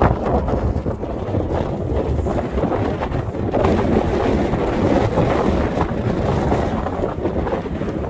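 Strong blizzard wind buffeting the microphone: a loud, continuous rumbling rush.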